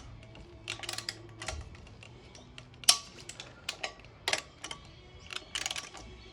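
Irregular sharp metallic clicks and clinks, like hand tools or parts being handled and set down, with one louder knock about three seconds in.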